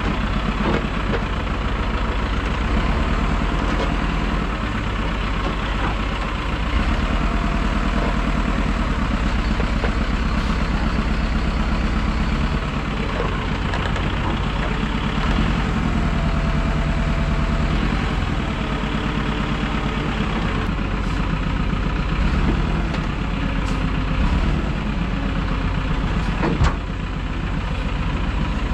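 Machinery running steadily with a low, even engine-like hum, cutting off abruptly at the end.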